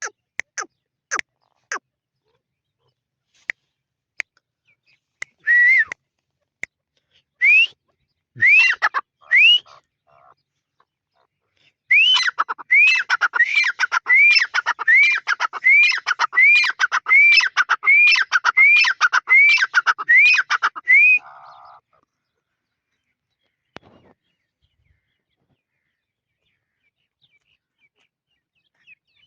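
Grey francolin (tetar) calling: after a few sharp clicks and some single rising notes, it breaks into a fast, repeated run of rising, high-pitched notes, about one and a half a second, that stops about two-thirds of the way through.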